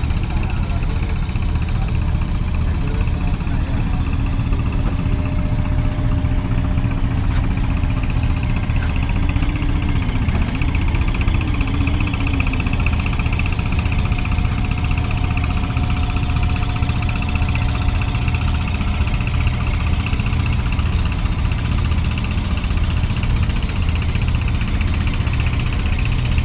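A river passenger launch's engine running steadily, heard on board while under way: a constant low drone with an even throb.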